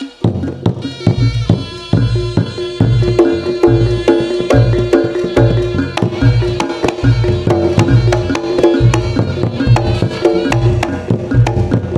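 Reog Ponorogo obyokan ensemble playing through a sound system: a reedy slompret (Javanese shawm) melody held over a steady beat of kendang drums and struck percussion.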